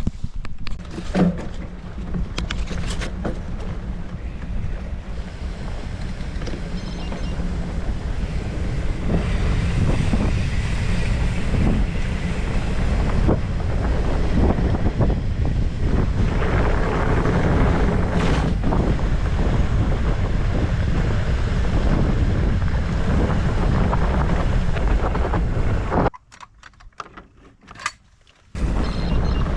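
Wind buffeting the microphone of a chest-mounted action camera, mixed with the rumble of mountain-bike tyres over a rough trail while riding. The noise drops away almost completely for about two seconds near the end, then returns.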